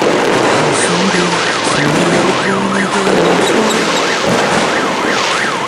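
Dense, continuous crackle of a firecracker barrage, loud and steady. Over it runs a fast warbling siren-like wail, rising and falling about three times a second, with a few short low held notes underneath.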